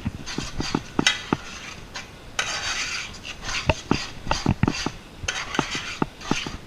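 Metal utensil knocking and scraping in a cooking pot of thick sauce: a string of irregular clicks, with a short scraping rush about two and a half seconds in.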